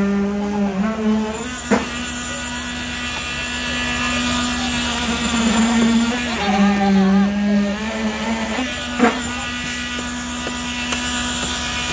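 Engine of the concrete pumping equipment running steadily at high speed while concrete is pumped through the hose. Its pitch dips twice for a second or so, and two sharp knocks come about seven seconds apart.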